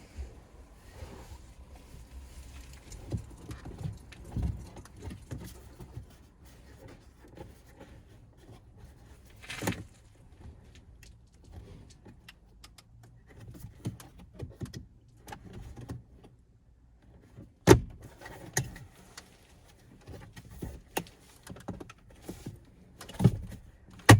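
Hands working plastic interior trim panels loose in a pickup's cab: scattered clicks, rattles and knocks, with one sharp click about eighteen seconds in.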